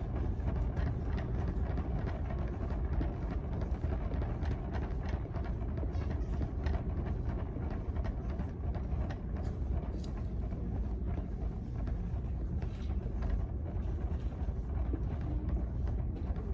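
Steady low rumble with faint, irregular clicks and taps: handling noise and footsteps from a phone camera carried through a store.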